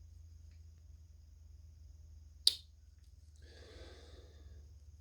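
Great Eastern Cutlery slipjoint pocketknife blade snapping on its backspring: one sharp click about two and a half seconds in, then about a second of soft noise.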